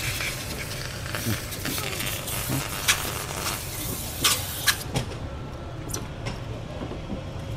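Stick-welding arc from a Dynaweld WRA-252 waterproof arc welder set to 65 amps, hissing and crackling with sharp pops now and then as the rod burns on its own while water is sprayed over the work. The high hiss drops away about five seconds in.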